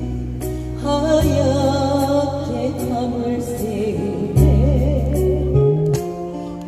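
Music: a slow Korean ballad with a backing track of sustained bass notes, under a melody line with wide vibrato.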